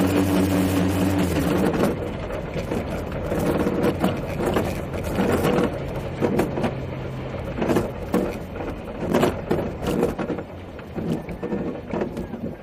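Streamliner motorcycle coasting down after its engine is cut: the engine's tone dies away in the first second or two, leaving a rolling rumble and irregular knocks and rattles of the body and wheels. It grows quieter as the bike slows.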